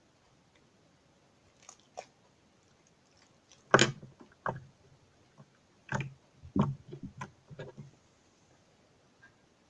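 Jiggly slime being squished and pressed by hand, giving a string of short wet squelches and pops, the loudest about four seconds in and a quick cluster a couple of seconds later.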